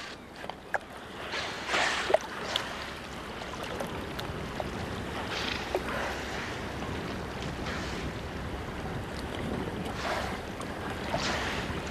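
Wind and waves slapping around a small boat on open water, with several short whooshes as belugas surface and blow close alongside.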